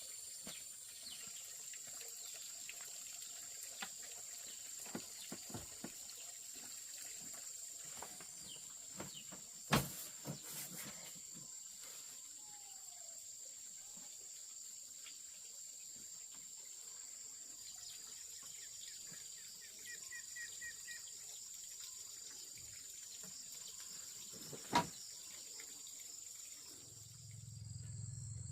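Steady high-pitched insect chirring with scattered small clicks, two sharp knocks about ten seconds in and near the end, and a brief bird call.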